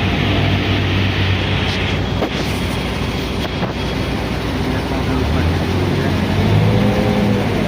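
Heavy machine's engine running steadily, its pitch climbing and easing back in the last couple of seconds as it is revved.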